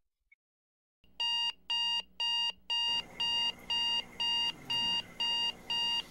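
Electronic alarm clock beeping in quick, evenly spaced pulses, about two a second, starting about a second in: a wake-up alarm going off.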